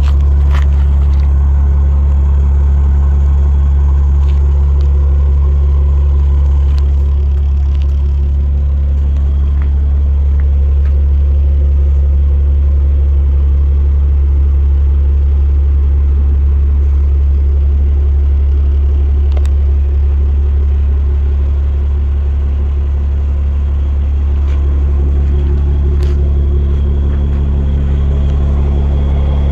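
Cummins diesel engine of a 2006 Cyclone fire pumper idling steadily, a deep, even rumble.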